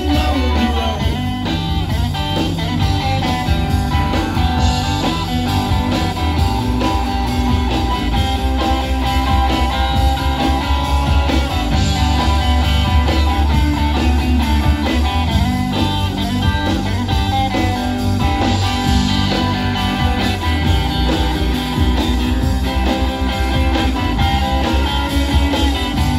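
Live blues-rock band playing an instrumental passage: electric guitar over a plucked upright double bass and keyboard, with a steady beat.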